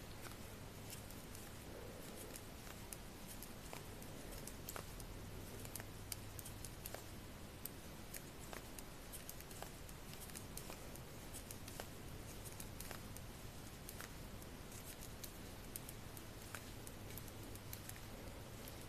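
Faint, irregular clicking and tapping of metal CraSy Trio knitting needles as stitches are knit plain around a sock.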